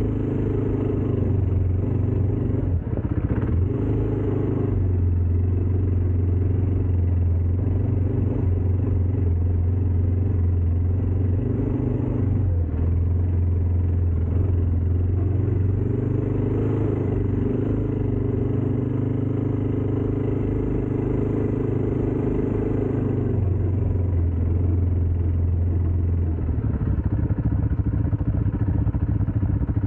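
ATV engine running steadily under way; near the end its note changes to a rougher, more uneven sound.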